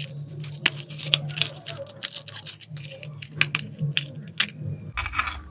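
Smartphone back cover being pried open with a thin metal pick: irregular small clicks and scrapes as its clips let go, over a low steady hum.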